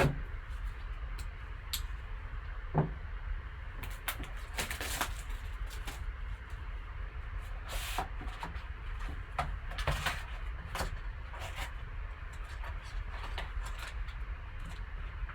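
Hands opening a sealed trading-card box and pack: scattered clicks, scrapes and rustles of cardboard and wrapper over a steady low hum.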